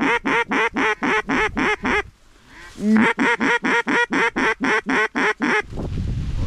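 Rapid, evenly spaced duck quacks, about five a second, in two runs broken by a short pause about two seconds in. Near the end they give way to wind rumbling on the microphone.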